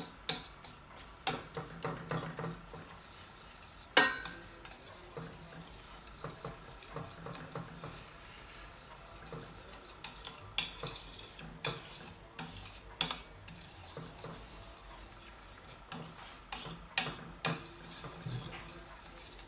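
A spoon stirring sugar in a stainless steel skillet while it dissolves, scraping and clinking against the pan at irregular moments; a sharp clink about four seconds in is the loudest.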